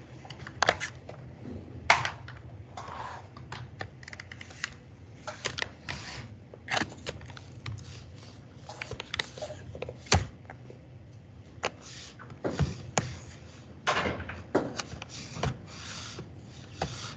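Scattered, irregular clicks and short clattering knocks over a low steady hum; the sharpest clicks come about two seconds in and around ten seconds in.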